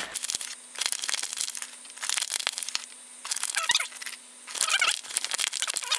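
Foil vacuum-sealed hop pack crinkling and dry whole-leaf hops rustling as they are shaken out into a plastic tub, in five or six bursts over a faint steady hum.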